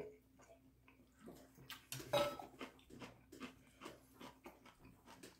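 Small eating and table noises from a boy at a meal: a stainless steel cup lowered from drinking and set down on a wooden table, with a louder clunk and short ring about two seconds in, then light clicks of a fork and chewing. A faint steady hum runs underneath.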